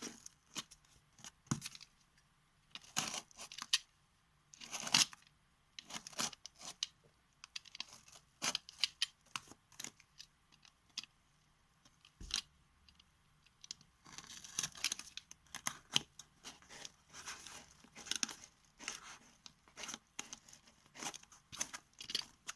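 A parcel's packaging being torn and pulled open by hand: irregular short rips and rustles, stopping and starting.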